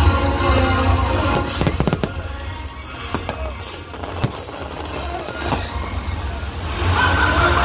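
Aerial fireworks shells bursting: a string of sharp bangs through the middle over a low rumble, with the show's music playing along and swelling again near the end.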